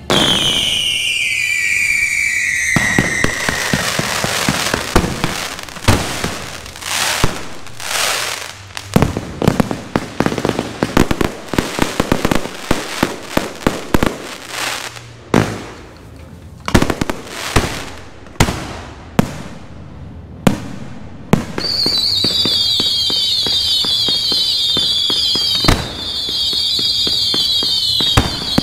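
Aerial fireworks show: a falling whistle as it opens, then a rapid, irregular series of shell bursts and bangs. In the last seven seconds or so, a steady chorus of shrill, warbling whistles runs under further bangs.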